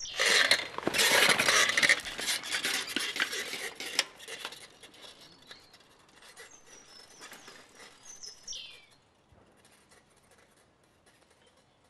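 Dense crackling and rustling of dry reed stems, loudest in the first few seconds and then fading away. A few high bird chirps come in the second half.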